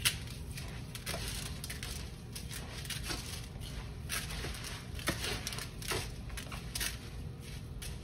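Rice stuffing with chopped herbs, spices and tomato paste being mixed. It makes a run of irregular short rustling and crushing noises.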